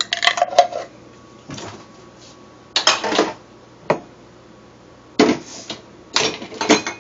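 Kitchen clatter: dishes, utensils and containers being handled in several short bursts, with one sharp click about four seconds in.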